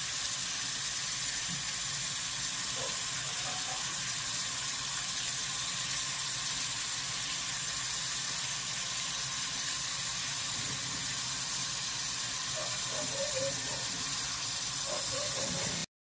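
Water running steadily from a sink tap into the basin, an even hiss that cuts off suddenly near the end.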